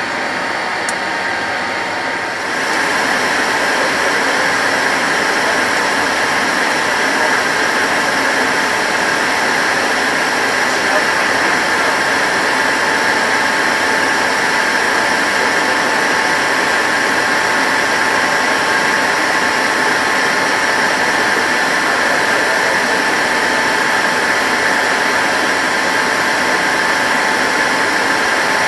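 Rolls-Royce Conway turbofans of a Handley Page Victor K2 running on a ground engine run, heard inside the cockpit: a steady jet rush with a high whine. It grows louder about two and a half seconds in, then holds steady.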